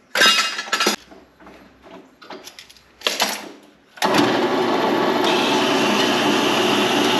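Loose scrap steel clanking as it is picked through. About four seconds in, a W.F. Wells AC-7 horizontal metal-cutting bandsaw is switched on and runs steadily, with a higher whine joining about a second later, as it is set to cut a piece of steel plate.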